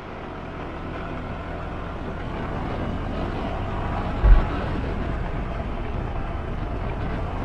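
Motor scooter riding along a road: a steady mix of engine, tyre and wind noise. One short low thump comes a little past halfway.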